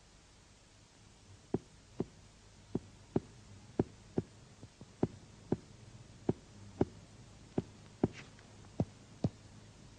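Clinical finger-on-finger percussion of the abdomen: sharp taps struck in pairs, about seven pairs in all, as the examiner works down the right parasternal line to find the lower border of the liver.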